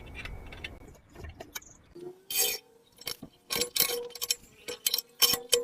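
Irregular sharp clicks and clacks, mostly from about two seconds in, over a faint steady tone.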